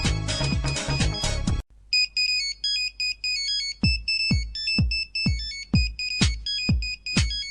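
Nokia ringtones played back to back. A busy electronic ringtone cuts off abruptly about a second and a half in. After a brief gap a new one starts with a high beeping synth melody, and a kick drum joins about two seconds later at roughly two beats a second.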